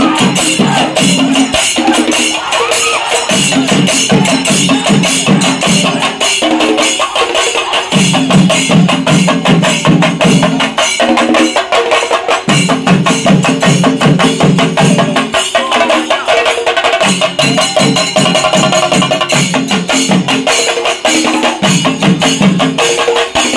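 Percussion ensemble playing: fast, dense drum strokes with a continuous shimmer of cymbals, over a low pitched part that comes in and drops out about every two seconds.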